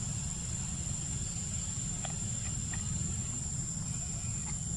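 Steady high-pitched insect drone, with a steady low rumble beneath and a few faint short chirps about two seconds in and again near the end.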